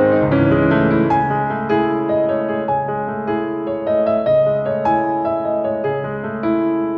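Background music: slow, gentle piano, single notes and chords struck about once or twice a second.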